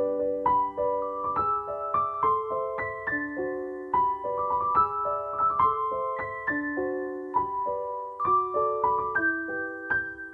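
Background music: a piano playing a gentle melody of struck notes, several each second, each note fading before the next.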